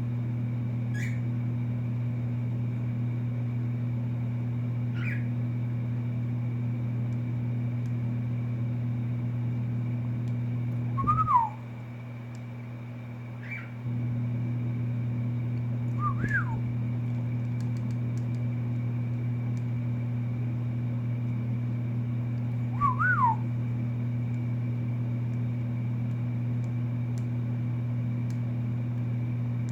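Cockatiel whistling short rising-and-falling notes every few seconds, some as quick two-note phrases, over a steady low hum.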